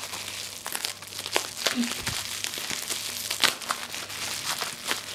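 Plastic bubble wrap crinkling and crackling as it is unwrapped by hand, with many small irregular crackles.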